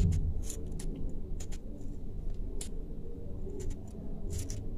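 A fork pricking a peeled raw potato, a run of irregular sharp clicks as the tines stab in, over a low steady background hum.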